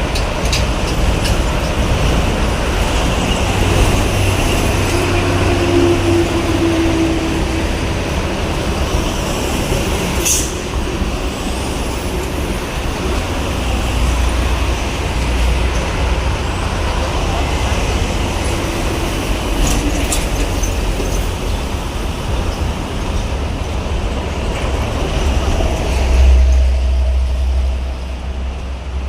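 Heavy diesel trucks and buses passing on a busy toll road: a steady rumble of engines and tyres, with two brief sharp sounds about ten seconds apart.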